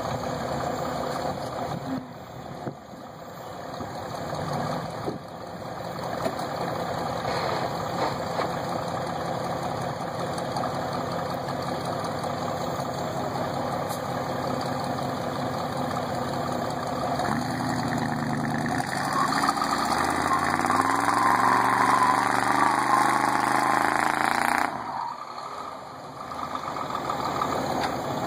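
Truck engines running as an old 4x4 pulls a stuck semi truck on a tow strap through snow. Partway through, an engine revs up under load, rising in pitch for several seconds, then drops off suddenly before picking up again.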